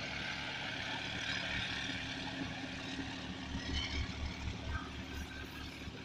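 Low, steady engine rumble under a constant outdoor background noise.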